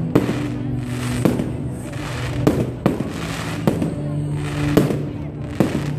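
Consumer aerial fireworks bursting overhead: about eight sharp bangs at uneven intervals, with a crackling hiss between them.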